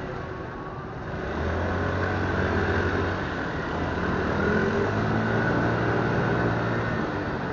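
Motorcycle engine running at low speed in slow town traffic, getting louder about a second in as it picks up, over steady road and wind noise.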